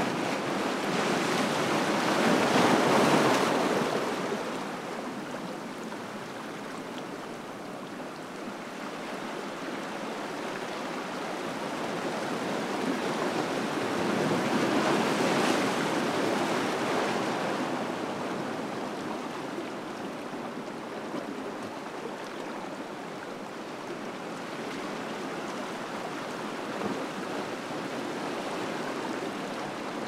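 Small ocean waves washing in over a rocky shoreline and swirling through the gaps between the rocks. The surf swells loudest about three seconds in and again around fifteen seconds, easing off in between.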